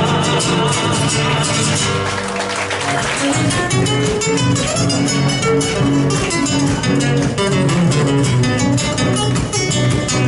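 Folk music on acoustic guitars, without singing. About two seconds in the texture changes, and a steady rhythmic accompaniment of plucked and strummed chords follows.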